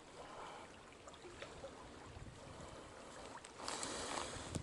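Faint steady rush of flowing stream water, with a louder rush of noise lasting about a second near the end.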